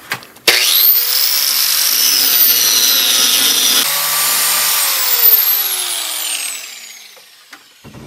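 Handheld angle grinder switched on about half a second in, its whine rising as the disc spins up, then grinding against a rusty steel bar. Near the end it is released, and its pitch falls as the disc winds down.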